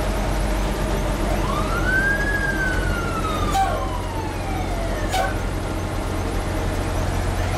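A fire truck siren winds up once and then slowly falls away, over the steady low drone of the fire engine's motor heard from inside the cab as it rolls slowly along.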